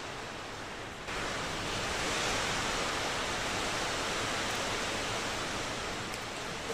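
A steady rushing hiss that grows louder and brighter about a second in, then holds steady.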